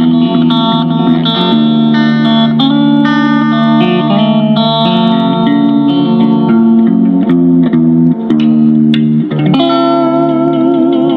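Guitar music: plucked guitar notes played over sustained lower tones, with a short break about nine seconds in.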